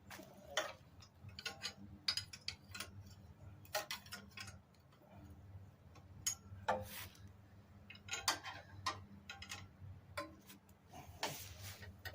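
Irregular light clicks and clinks of metal, coming in small clusters, from hand tools and parts being handled, over a faint steady low hum.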